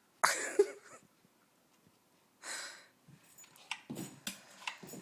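A small dog breathing hard in two short huffs, then a quick series of knocks and clicks as it jumps up and down.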